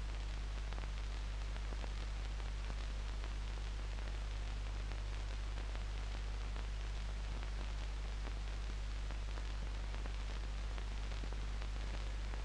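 Steady hiss and faint crackle of an old film soundtrack over a low, steady hum, with no sound of the avalanche itself.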